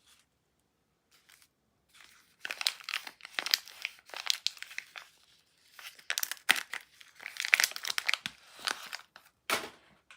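Soap wrapper being crinkled and torn open by hand: a long stretch of dense crackling and rustling that starts about two seconds in, with a brief pause midway and a last short crinkle near the end.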